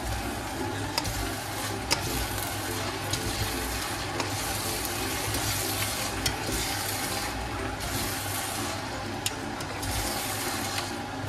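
Mee goreng noodles sizzling in a hot frying pan as they are stirred and tossed, with occasional sharp clicks of the utensils against the pan.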